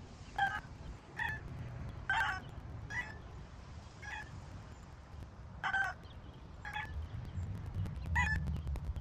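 Chickens calling with short, separate clucks or squawks, about eight spread irregularly a second or so apart, over a low steady rumble.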